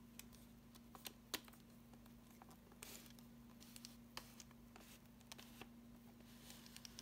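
Faint scattered clicks and taps of fingers handling a Minolta 7000 AF camera body and its zoom lens, with a brief rustle about three seconds in, over a steady low hum.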